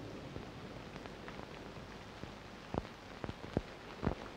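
Steady low hiss with a few light clicks of clothes hangers knocking on a rack rail as garments are taken down, the clicks coming in the second half.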